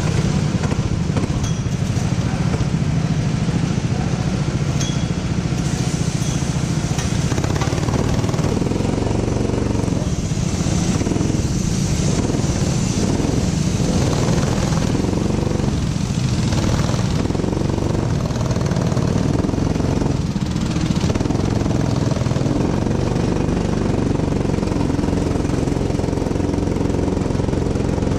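Rental go-kart's small single-cylinder engine, heard on board, running continuously with its note changing as the throttle is opened and eased.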